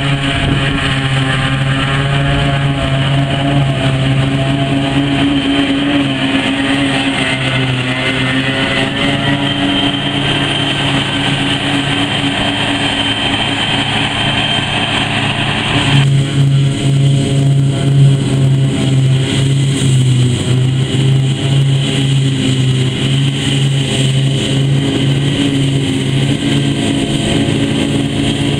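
John Deere 7500 self-propelled forage harvester running under load, chopping grass and blowing it into a silage wagon, mixed with the tractor pulling the wagon alongside. It is a steady heavy engine drone, with a high whine over it in the first half. The sound changes abruptly about halfway through.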